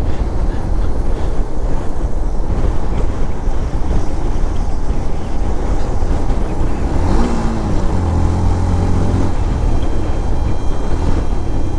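Wind rushing over the microphone of a moving motorcycle, with its engine running underneath. About seven seconds in an engine note rises in pitch and holds for a second or so.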